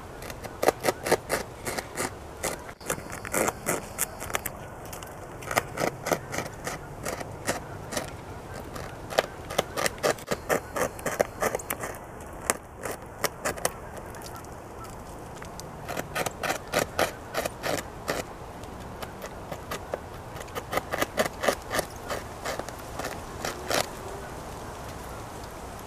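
North American beaver gnawing a tree trunk, its incisors scraping and chipping the wood in runs of rapid crunching clicks with short pauses between them.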